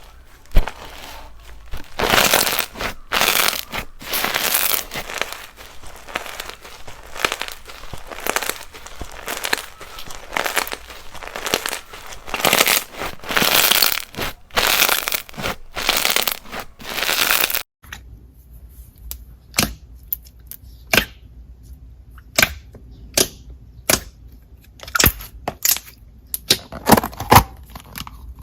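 Hands squishing and stretching slime, making dense crackling and crinkling sounds. About two-thirds of the way through these stop abruptly, and separate sharp clicks and pops follow, as slime is poked and pressed.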